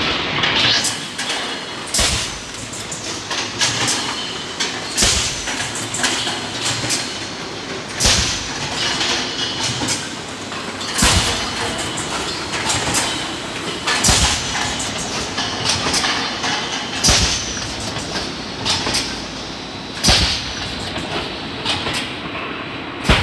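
OGB-5SS five-cavity servo-driven PET bottle blow moulding machine running, with steady clatter and hiss. A loud sharp clack repeats about every three seconds, one per moulding cycle, some followed by a short hiss of air.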